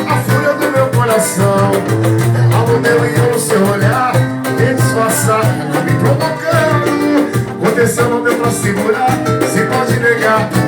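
Brazilian bar-style song playing, an instrumental passage with guitar over a steady beat.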